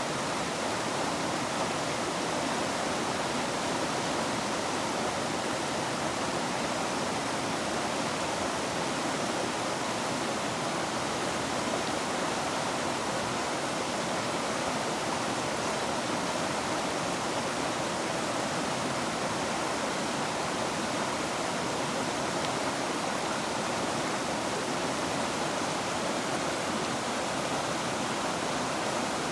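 A river's water rushing steadily, an even, unbroken noise with no changes in level.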